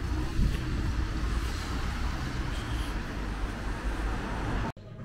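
Street traffic noise: cars driving along a town road, with a heavy low rumble. It cuts off abruptly near the end.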